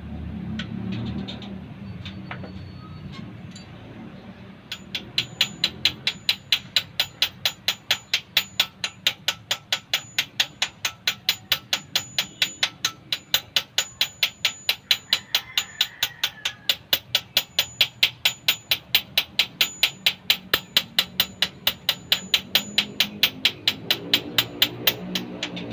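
Hammer tapping on metal in a steady, even rhythm of about three strikes a second, starting about five seconds in.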